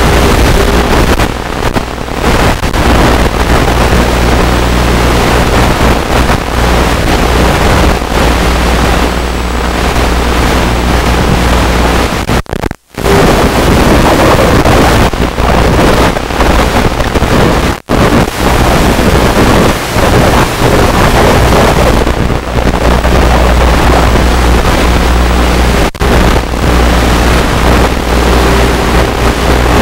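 UMX Radian RC plane's electric motor and spinning propeller in flight, heard from on board together with the rush of wind: a steady, loud noise with a low hum underneath. The sound cuts out briefly twice near the middle.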